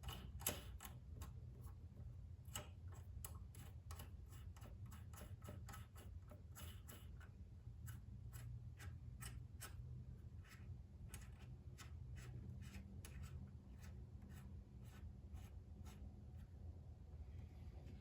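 Faint, irregular light clicks from hand work running the rocker-arm nut down onto its stud on a Firman inverter generator's engine, a few clicks a second over a low steady hum.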